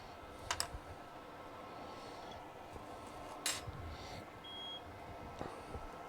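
A few light clicks and taps of small tools at a repair bench: two close together about half a second in, a sharper one in the middle and fainter ones later. One short high-pitched electronic beep sounds a little after the middle, over a faint steady hiss.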